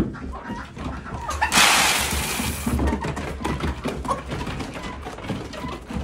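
Chickens clucking softly and pecking at feed, with many small taps. About a second and a half in, a loud rushing, hissing noise lasts a little over a second.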